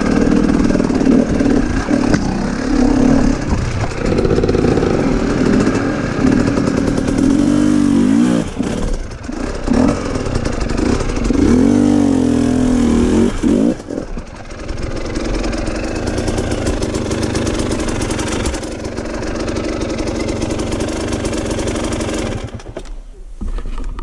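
KTM enduro dirt bike's engine working at low speed up a rocky trail, the throttle opening and closing so the revs rise and fall again and again. Later it runs steadier and a little quieter, dropping away near the end.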